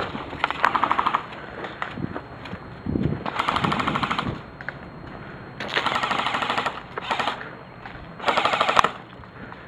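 Airsoft rifles firing five rapid full-auto bursts, each a second or shorter, with short gaps between them.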